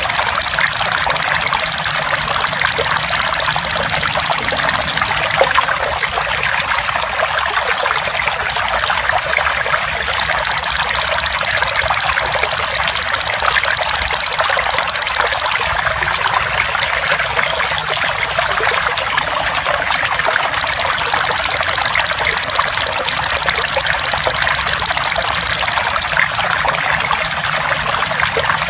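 Water trickling steadily throughout. Over it, a belalang emas (golden grasshopper) buzzes loudly in a high, steady trill three times, each bout about five and a half seconds long, at the start, about ten seconds in and about twenty seconds in.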